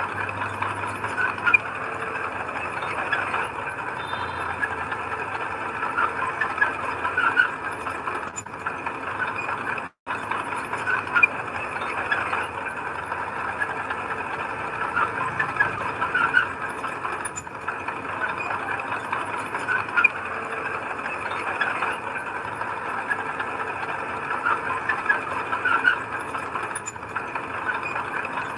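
Heavy diesel earthmoving machinery working: a steady mechanical noise with frequent short squeaks and rattles, cut off for a split second about a third of the way in.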